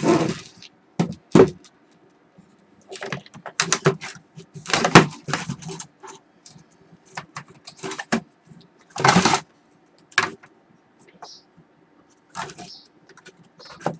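Black plastic UPS casing being handled and its cover pried off: irregular clunks, clicks and scrapes, with louder knocks about five and nine seconds in.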